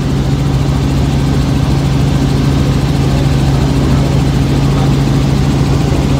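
Helicopter rotor and turbine heard from inside the cabin in flight: a loud, steady low hum with a rapid beat underneath.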